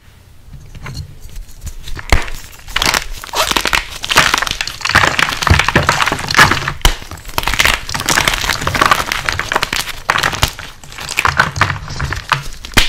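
WOD Nation gym chalk cubes being crushed by hand in a bowl: dense crunching and crackling as the blocks break and crumble into powder. It starts faintly and builds to a steady run of loud crunches from about two seconds in.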